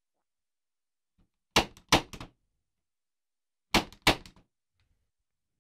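Punch-down tool snapping twice, each punch a pair of sharp clicks, about a second and a half in and again about two seconds later. It is seating Cat 6 wires into a patch panel's slots and cutting off the excess wire.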